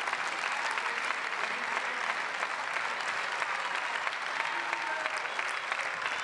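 Applause from a large group of members of parliament: many hands clapping steadily.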